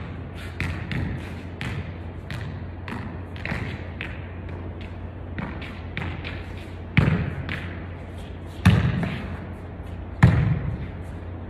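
A soccer ball thumping three times, each hit ringing briefly off the court's concrete walls, with light ticks between and a steady low hum.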